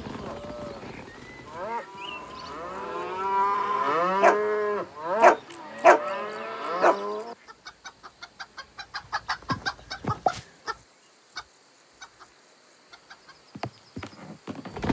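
Cartoon farm-animal calls: chickens clucking and a cow mooing in short, arching calls. Then a quick run of clicks at about five a second, thinning out to a few scattered clicks.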